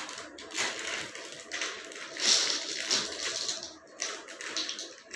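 A clear plastic packet crinkling as small plastic building blocks are shaken out of it, the blocks clicking and clattering against each other in irregular bursts.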